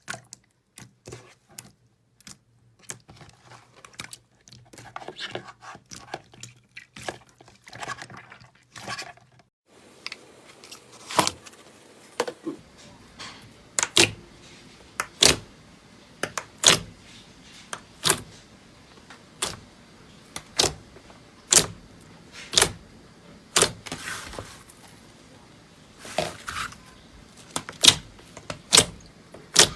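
Slime being pressed and squeezed by hand, making small dense crackles, then after a cut about ten seconds in, louder sharp pops about once a second.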